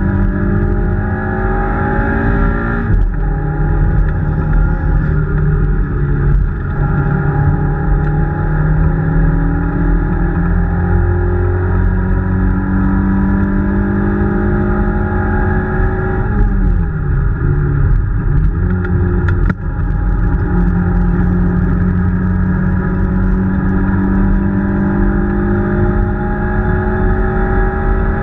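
Peugeot 205 rally car's four-cylinder engine heard from inside the cabin at speed. The note climbs, breaks off briefly at gear changes (twice early on, once more after about 19 seconds), and holds high for a long stretch. It drops as the car slows about two-thirds of the way through, then builds again.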